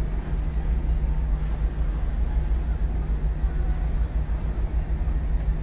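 Steady low rumble of ship machinery with a constant hum, mixed with wind buffeting the microphone.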